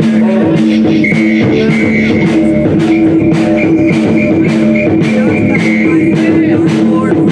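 Live rock band playing with guitar and drum kit, loud and steady. A high note is held over the band from about a second in until near the end.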